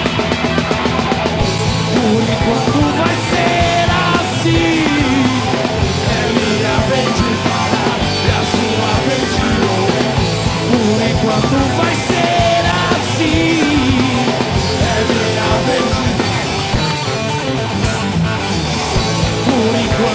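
Rock band playing loudly: distorted electric guitars over a driving drum kit.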